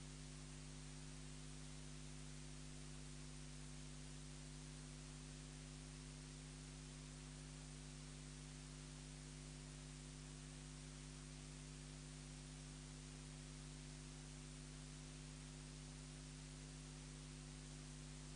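Near silence: a steady hiss with a low electrical hum, unchanging throughout.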